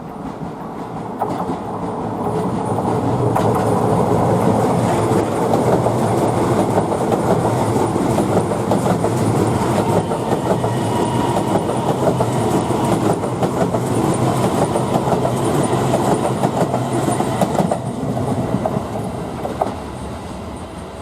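Keisei electric commuter train passing close by, its wheels clattering rapidly over the rail joints; the sound builds over the first few seconds and fades near the end.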